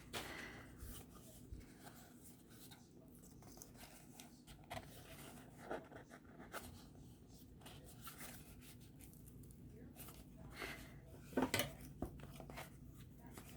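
Faint scratching, tapping and clicking of fingers picking at a small box's lid or wrapping, with a brief louder cluster of clicks about eleven seconds in.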